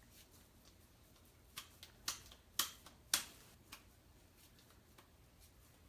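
About six light clicks and taps of hands and utensils at work in a kitchen, the sharpest two near the middle, over a faint room hum.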